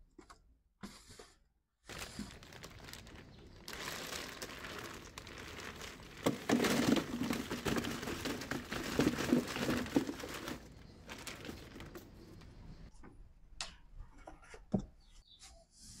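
Plastic ice bag crinkling and rustling as it is handled over a styrofoam box, loudest in the middle, followed by a few scattered taps and knocks.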